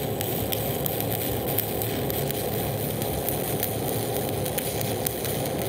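Stick-welding arc of an E309L-16 stainless electrode burning steadily on a carbon-steel-to-stainless joint: a continuous crackling hiss with scattered sharp pops.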